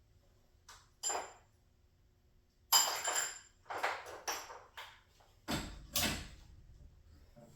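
Metal hardware and tools clinking and clanking in a series of sharp knocks with a brief metallic ring, the loudest cluster about three seconds in and another near six seconds.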